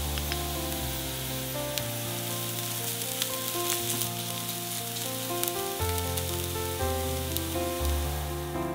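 Chopped onion, ginger and garlic sizzling in oil in a frying pan while a spatula stirs them, with scattered light scraping clicks. Soft piano music plays underneath.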